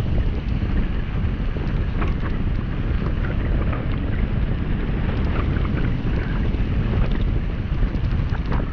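Wind buffeting the camera microphone during a fast downhill ride on a gravel road, with tyres crunching over the gravel and scattered small clicks from stones and the bike.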